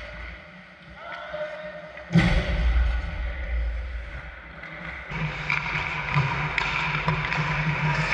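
Sounds of an ice hockey game on the rink: a sudden loud knock about two seconds in, followed by low rumbling and then a steady rough noise of play with faint voices.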